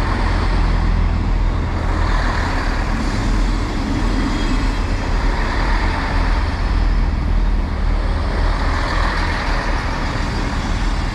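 Two coupled Class 158 diesel multiple units running at the platform, a loud, steady rumble from their diesel engines and wheels.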